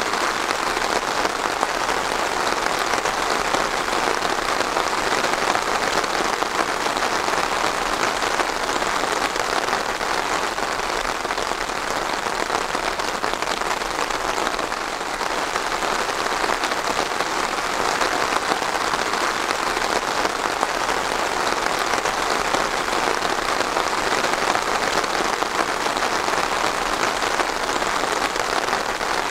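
Steady heavy rain falling on a surface, a dense even patter with no letting up.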